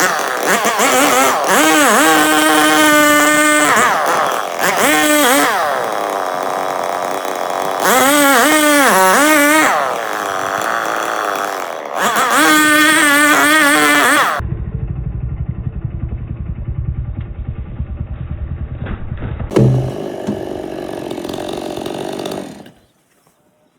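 Two-stroke chainsaw engine running at high revs, its pitch dropping and climbing back several times as the throttle is eased and opened. About two-thirds through, the sound changes abruptly to a low, muffled rumble, and it cuts off shortly before the end.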